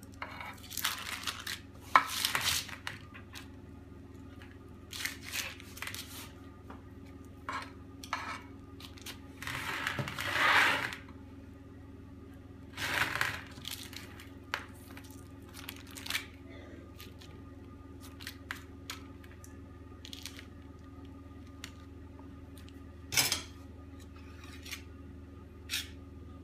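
Metal palette knife scraping and smoothing sponge-cake batter across a parchment-lined baking tray, in irregular strokes with the parchment rustling, the longest stroke about ten seconds in. Now and then the knife clicks sharply against the tray, over a faint steady low hum.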